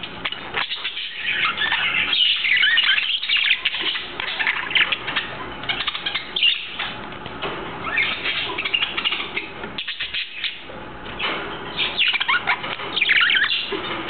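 Budgies chattering: a busy stream of short chirps and warbling notes, with brief lulls about a second in and again about ten seconds in.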